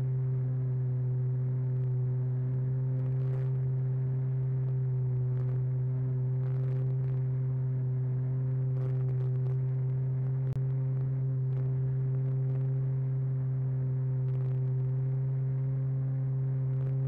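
Radio-controlled airplane's motor and propeller droning at a steady pitch, heard from a camera mounted on the plane's underside during flight.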